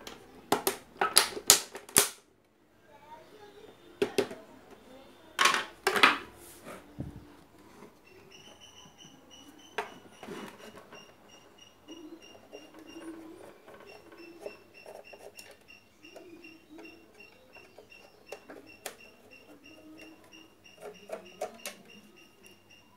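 Sharp clicks and knocks of hard parts being handled. The loudest cluster is in the first couple of seconds and another comes around six seconds in, followed by softer scattered clicks and a faint thin high tone.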